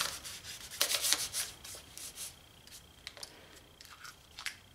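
Hands pressing and rubbing masking tape and newspaper down onto an engine block: paper rustling and tape scraping, loudest in the first second, then fainter handling with a few light clicks.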